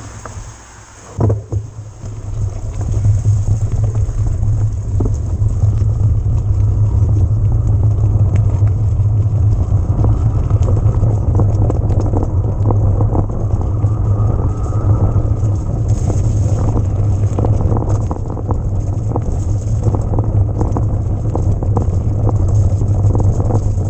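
Wind buffeting the microphone of a riding electric mountain bike, a loud low rumble that builds up in the first couple of seconds, with frequent clicks and rattles from the bike over rough ground.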